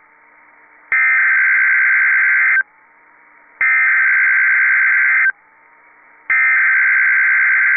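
Emergency Alert System SAME header sent three times: three bursts of shrill digital data tones, each about 1.7 seconds long, with about a second of faint radio background between them. The coded header opens a Child Abduction Emergency (Amber) alert.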